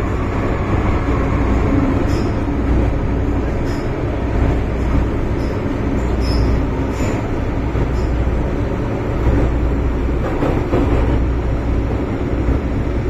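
MTR M-Train running through a tunnel, heard inside the car: a steady rumble of wheels and motors with a faint click every second or two.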